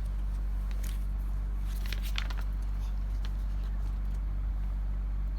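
Steady low electrical hum with a few faint, brief rustles and clicks of small items being handled, about one to two seconds in and again near three seconds.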